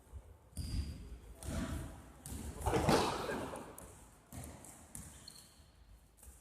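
Basketball game play in a sports hall: the ball bouncing and thudding on the floor, several separate knocks, with a louder, busier stretch about three seconds in.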